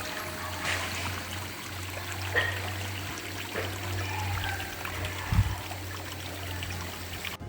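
Waterfall water rushing steadily, an even hiss of falling and splashing water that cuts off abruptly near the end.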